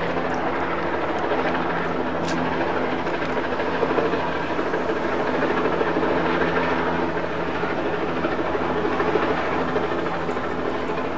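Loud, steady drone of a news helicopter's rotor and engine flying overhead.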